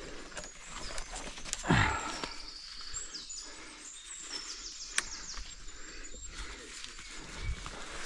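Dry twigs and brush rustling and crackling as a sling strap is worked around a fallen branch, with one louder rustle a little under two seconds in. A small songbird sings a quick, high trill in the middle.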